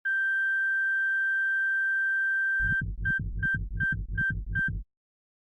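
Heartbeat sound effect with a heart-monitor tone: a steady flatline beep for about two and a half seconds, then fast low heartbeat thumps, about three a second, each with a short monitor beep. It cuts off suddenly near the end.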